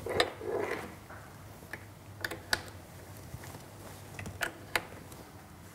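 A handful of sharp clicks at irregular intervals from the controls and plug-in leads of an oscilloscope and signal generator being set up, over a faint low hum.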